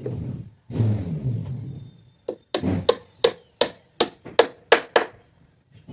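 A hammer striking woodwork: a quick run of about eight sharp blows, roughly three a second, each with a short ring. The blows follow about two seconds of duller, rougher noise.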